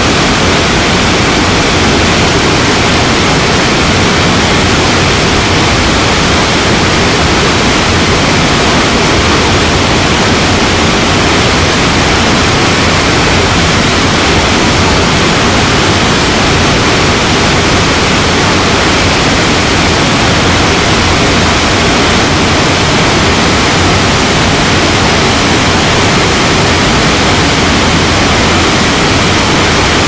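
Waterfall in flood, a heavy volume of muddy water crashing down over rock: a loud, steady rush of water that never changes.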